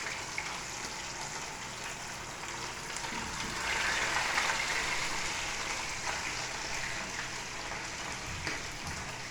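Seasoned fish frying in a very hot pan: a steady sizzle that swells louder for a couple of seconds about four seconds in.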